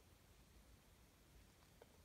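Near silence: room tone, with one faint short tick near the end.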